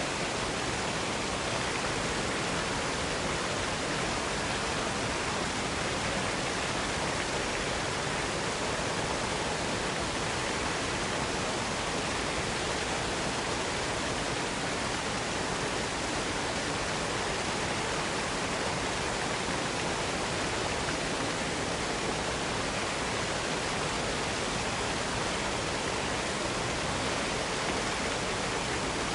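Steady rush of falling water from waterfalls, an even hiss with no breaks or changes.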